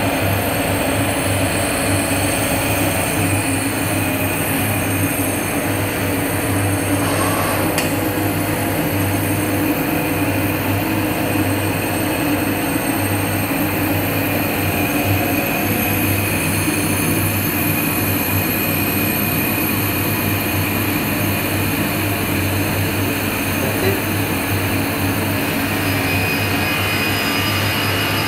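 Laser cutter running while it cuts a cast acrylic sheet: a steady low hum with an even rushing noise from the machine's fans and air assist, unchanging throughout.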